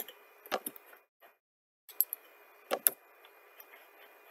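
Computer mouse and keyboard clicks: a few sharp clicks, mostly in quick pairs, about half a second in and again around two and three seconds in, over a faint steady hiss.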